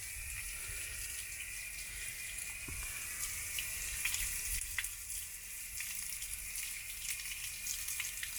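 Water pouring steadily out of a camper water heater tank through the open anode port as the tank drains fast with its pressure relief valve pulled open.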